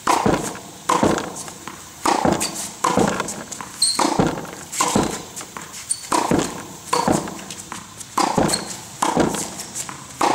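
Tennis balls being hit with a racket and bouncing on a concrete floor: a steady run of sharp impacts, about one every 0.8 seconds, each with a brief echo after it.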